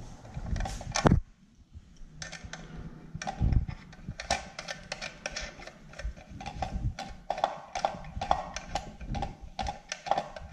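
Irregular light clicks and taps from handling a ring terminal on a car power inverter's DC input stud, as the terminal is turned on the stud and its plastic cover is fitted. There is a brief quiet pause about a second in.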